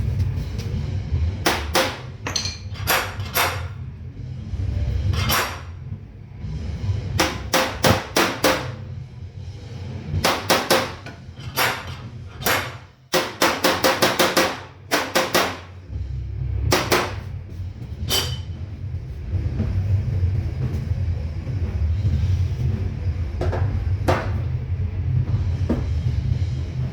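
Panel-beating hammer striking a steel car fender backed by a dolly: groups of sharp metallic blows, some single and some in quick runs of several a second, straightening out a dent. Background music plays underneath.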